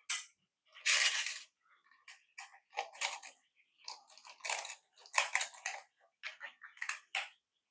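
Hard plastic toy casing being handled and worked on during disassembly: irregular scrapes, clicks and small rattles, about a dozen in all.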